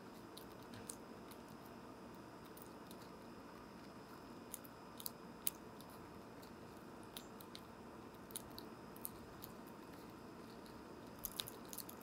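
Squirrel cracking and chewing seeds, picked up close by a microphone on the bird feeder: irregular small crunches and sharp ticks over a steady faint hiss, with a quick cluster of louder ticks near the end.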